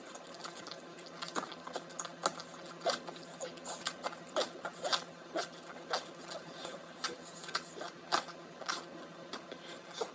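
Close-up mouth sounds of a person chewing a piece of pink food: many short, irregular clicks and smacks, several a second.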